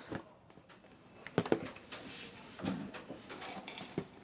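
A few light clicks and knocks from the alarm panel and its parts being handled: a quick run of sharp clicks about a second and a half in, a duller knock a little after halfway, and one more click near the end.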